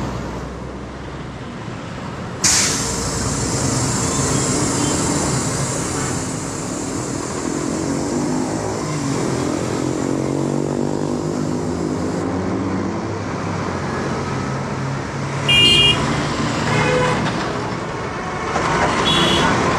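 Busy road traffic with truck, bus and car engines running and pitch rising and falling as vehicles pass. A sudden hiss starts about two and a half seconds in, and a horn toots briefly twice near the end.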